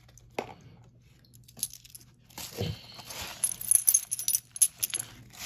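Silver coins clinking together as they are shuffled in the hands: a single click early, then from about two and a half seconds in a busy scatter of sharp metallic clinks and jingles with handling noise. The coins are pre-1965 US 'constitutional' silver quarters.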